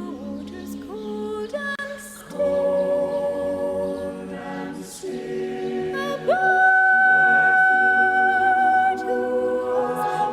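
Vocal music: voices singing long held notes over a steady low drone. About six seconds in, a higher voice slides up and holds a long note.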